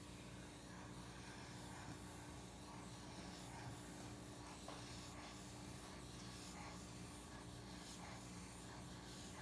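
Faint sound of a marker drawn over sketchpad paper in continuous looping figure-eight strokes, over a faint steady hum.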